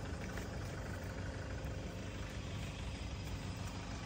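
Steady low engine-like rumble with no firework bangs.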